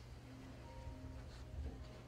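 Soft, slow background music with a few faint held notes, over a steady low hum.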